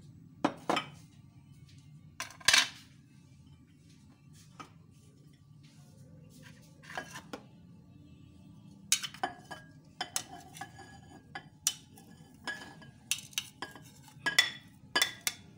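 Dishes clinking and knocking together: a ceramic plate rapping against a glass mixing bowl as boiled potato chunks are pushed off it into the bowl. The knocks are irregular, with a loud pair about two and a half seconds in, a quieter stretch in the middle, and a rapid run of clinks near the end.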